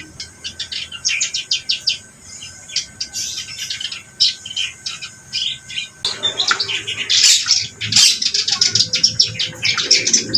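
A reed warbler (kerak basi) singing hard: a fast, unbroken chatter of short, harsh notes, growing louder and denser about halfway through.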